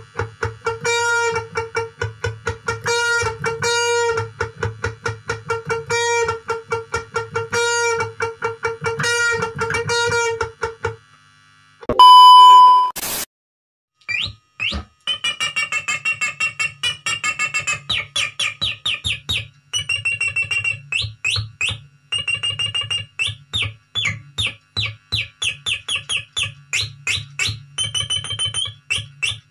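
Stratocaster-style electric guitar imitating a hen's clucking with fast repeated picked notes for about the first eleven seconds. A short loud steady beep sounds about twelve seconds in. Then the guitar imitates a straw-headed bulbul's song with quick high picked notes and pitch bends.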